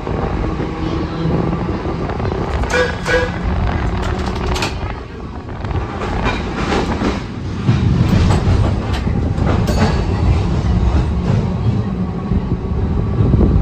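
Replica vintage streetcar running along its track: a steady low rumble with scattered sharp clicks and knocks from the wheels on the rails, louder from about eight to ten seconds in.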